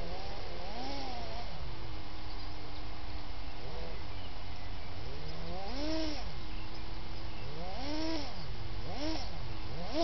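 Electric drive motors of a Kyosho Blizzard radio-controlled snowcat whining, the pitch sweeping up and falling back again and again as the throttle is worked, over a steady low rumble.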